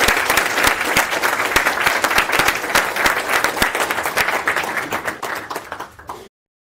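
Audience applauding, a dense patter of many hands clapping that thins out toward the end and is then cut off abruptly.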